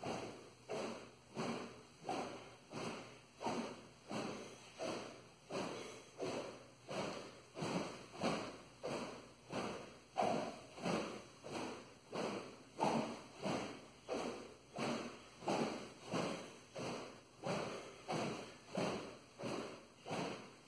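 A training sword swung over and over through the air in a continuous cutting drill, each swing a whoosh, about three every two seconds in an even rhythm.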